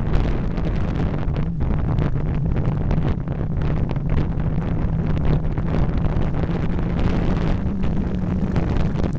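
Wind buffeting the microphone of a camera riding in a moving road vehicle, over the vehicle's steady low engine hum.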